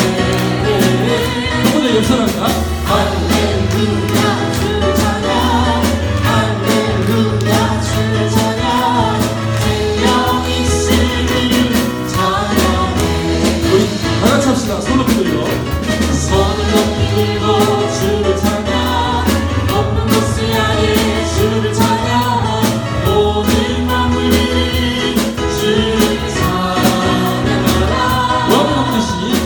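A group of voices sings a Korean praise song over band accompaniment, with a bass line and a steady beat.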